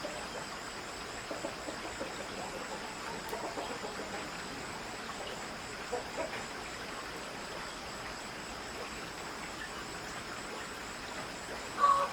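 Insects trilling steadily at a high pitch over a faint hiss, with a few faint short calls scattered through; a rooster starts to crow right at the end.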